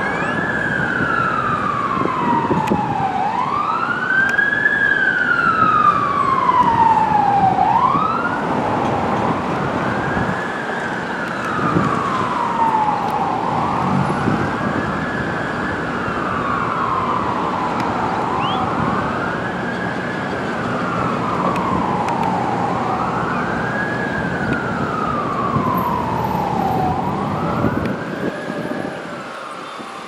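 Siren wailing: a repeating tone that rises quickly and falls slowly, about once every four to five seconds, over steady city traffic rumble.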